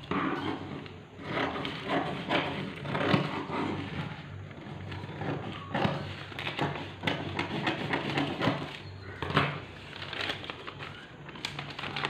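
Scissors snipping through a paper dress pattern in irregular strokes, with the paper crinkling and rustling as it is turned and lifted near the end.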